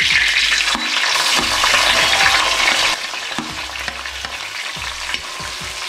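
Chopped ginger and garlic sizzling as they drop into hot coconut oil with curry leaves in an uruli, stirred with a steel spatula. The sizzle is loudest for the first three seconds or so, then settles lower.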